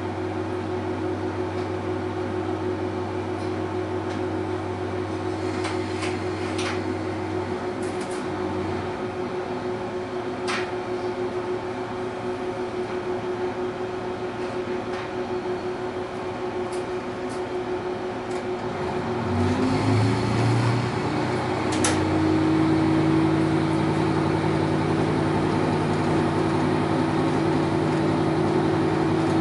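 Diesel railcar engine idling steadily, then about two-thirds of the way through it revs up, its pitch rising and the sound growing louder as the railcar pulls away. A few sharp clicks are heard along the way.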